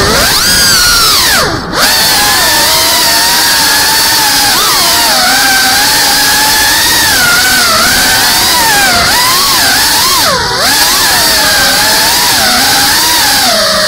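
Whine of a Cinelog 35 FPV drone's brushless motors and ducted propellers, the pitch constantly rising and falling with the throttle. Twice the whine briefly drops away as the throttle is cut: near two seconds in and again about ten seconds in.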